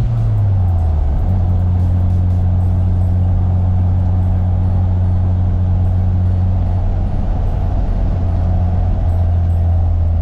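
Mazda RX-7 FD's twin-turbo 13B twin-rotor engine running at a steady, even drone. The pitch drops a little about a second in and then holds.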